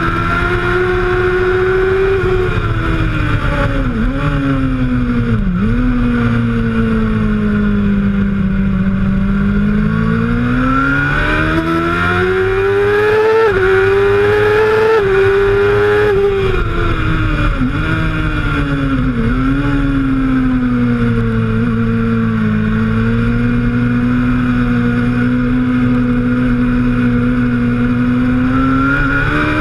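Suzuki GSX-R750 K1's inline-four engine at racing speed, its note rising and falling as it accelerates and brakes, with several quick gear changes, under a steady rush of wind.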